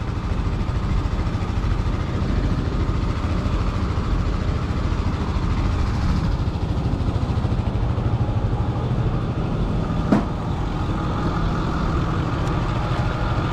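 Flatbed pickup truck's engine idling steadily, a low even rumble, with one sharp click about ten seconds in.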